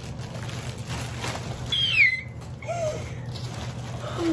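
A short, high-pitched squeal that falls in pitch, about two seconds in, taken to be a woman's squeal of excitement, followed by a brief lower vocal sound. Faint crinkling of a plastic packaging bag is heard before it.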